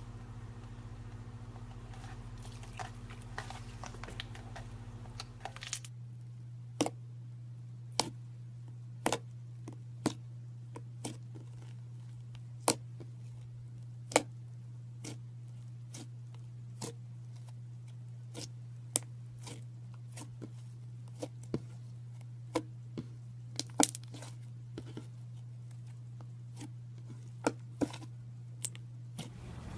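Hands playing with slime: a clear slime stretched with faint crackling, then, from about six seconds in, a thick slime pressed and kneaded, giving sharp, irregular pops and clicks as trapped air bursts. A steady low hum runs underneath.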